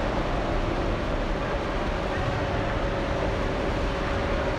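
Steady background noise of an indoor diving pool hall: a continuous even rumble and wash with a faint hum, with no splash or other distinct event.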